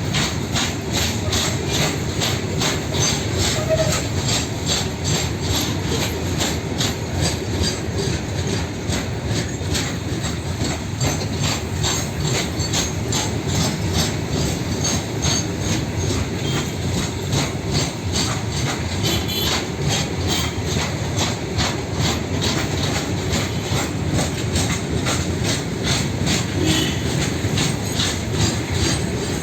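Wagons of a long, heavily loaded freight train rolling past at steady speed, their wheels clacking over the rail joints in an even, quick rhythm over a continuous rumble.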